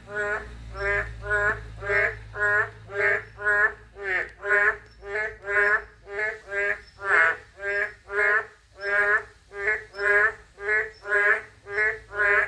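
Boreal digging frogs (Kaloula borealis, maengkkongi) calling: short croaks repeated about twice a second, a few of them sweeping downward. This is the calling they give the day after rain.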